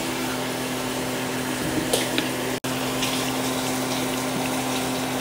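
A steady low mechanical hum with a hiss over it, cutting out for an instant about halfway through, with a few faint clicks just before.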